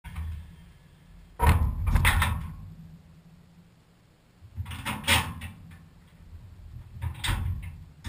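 Clunks and rattles inside a dishwasher as it starts its cycle: three loud bursts about 1.5, 5 and 7 seconds in, over a low hum.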